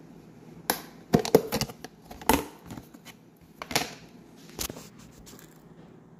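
Plastic container lid being popped open by hand: a series of sharp plastic cracks and clicks as its edges are pried loose.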